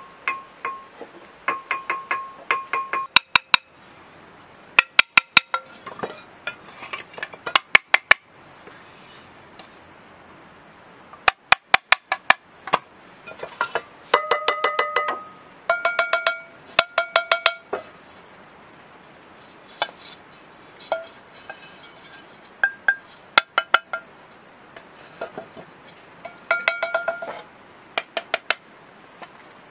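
Fired earthenware bowls and plates ringing as they are tapped and scraped with a hand tool, in quick runs of taps; each piece rings at its own clear pitch.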